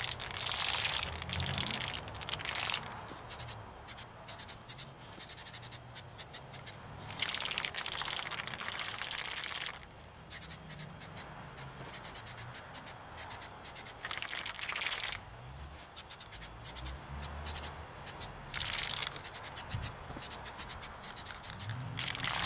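Aerosol can of spray primer: several hissing bursts of spray of one to two seconds each, alternating with quick runs of rattling from the mixing ball as the can is shaken between coats.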